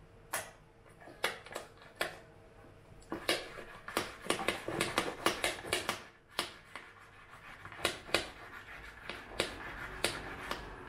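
Milk being frothed in a glass French press by pumping its mesh plunger up and down: short swishing, clicking strokes, a few spaced out at first, a fast run in the middle, then slower strokes again.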